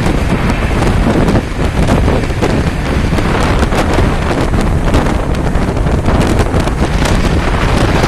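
Wind rushing over the microphone aboard an express train running at speed, over a heavy low rumble from the wheels and track with frequent sharp clicks of the wheels over rail joints.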